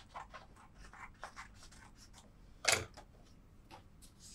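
Faint rustling, scratching and small clicks of a sheet being handled and rolled into a cone, with one short louder sound a little past halfway.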